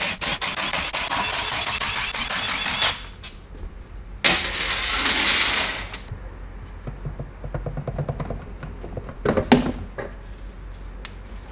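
Cordless power tool running in two bursts as it spins out the transmission oil-pan bolts. The bolts then clink on the steel bench and the pan is handled, with one sharp metallic knock a little before the end.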